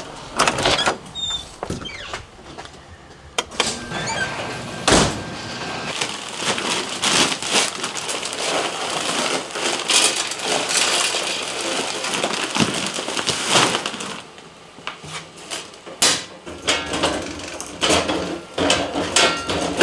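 Wood pellets poured from a bag into a Traeger pellet grill's hopper: a dense patter of many small clicks lasting several seconds through the middle. Separate knocks and clunks come before and after it, from a door and the grill being handled.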